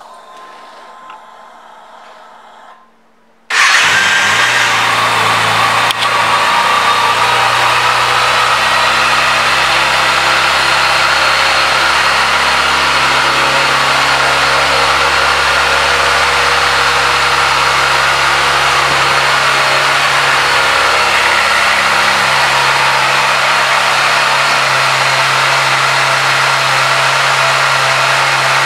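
2011 Kawasaki Ninja ZX-6R's 599 cc inline-four engine starting suddenly about three and a half seconds in, then idling steadily.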